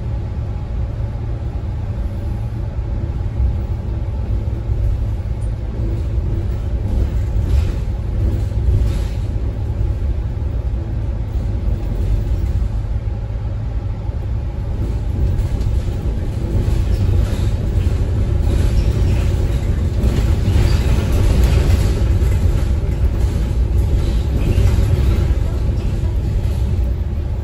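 Kowloon Motor Bus ride noise heard from inside the cabin: a steady low engine and road rumble, a little louder in the second half.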